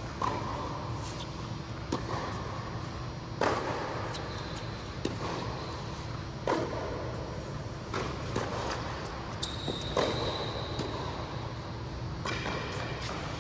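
Tennis rally on an indoor court: the ball is struck by rackets and bounces, sharp knocks about every one and a half seconds, over a steady low hum of the hall. A brief high squeak sounds about three-quarters of the way through.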